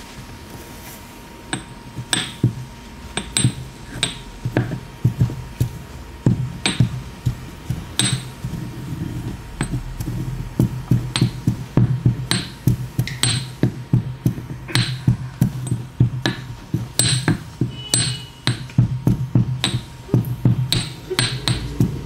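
Stone pestle pounding in a green stone mortar: a run of sharp knocks, spaced out at first, then coming faster and more steadily from about halfway through.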